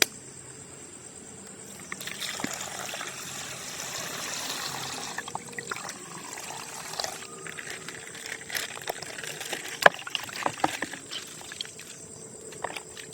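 Coloured water trickling and pouring out of a burst plastic ice bag, with plastic crinkling and a few sharp clicks, one louder about ten seconds in.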